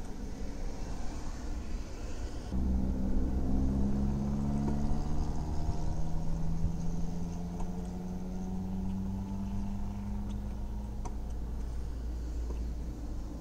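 A motor vehicle's engine running close by. It starts abruptly a couple of seconds in and rises slowly in pitch over several seconds before easing back.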